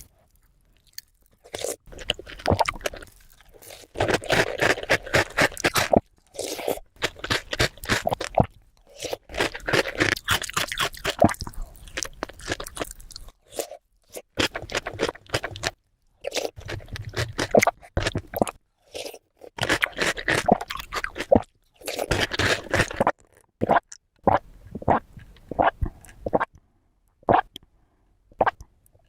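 Close-miked eating of a fruit dessert: crunching bites and chewing, with some wet squishing, coming in bursts of a second or two with short pauses between them. Near the end the chewing thins out to a few separate crunches.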